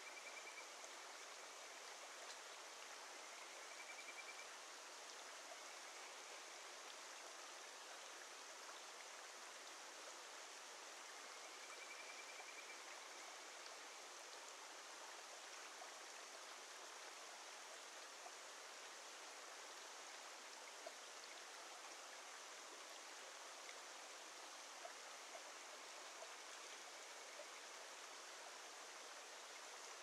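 Steady rush of a shallow mountain stream, with a few faint short whistled calls of kajika frogs (Buergeria buergeri), mostly in the first half.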